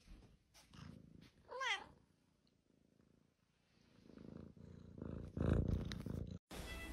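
A tabby-and-white kitten gives one short meow that wavers up and down in pitch about a second and a half in, then purrs quietly from about four seconds in.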